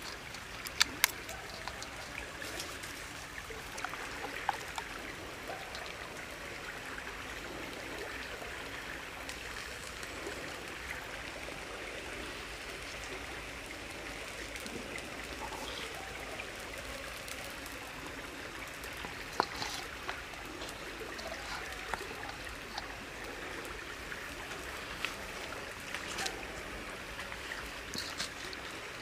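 Steady flowing water of a stream, with a few sharp clicks and taps now and then from hands handling food in a steel wok.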